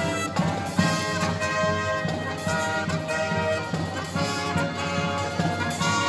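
Live brass marching band playing, with trumpets and trombones carrying the melody over a steady beat.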